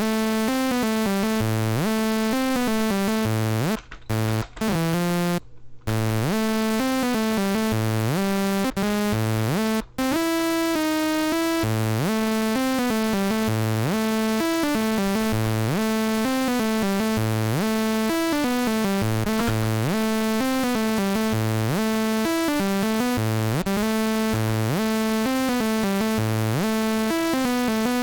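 Fast electronic synthesizer melody over short bass notes playing back in a loop from music software. It cuts out briefly a few times around the fourth to sixth second and once near ten seconds.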